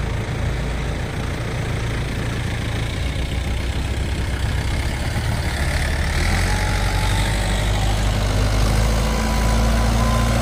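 Mahindra Yuvo 575 DI tractor's diesel engine running as it hauls a loaded trolley. The engine grows louder about halfway through and rises in pitch near the end as it is revved up.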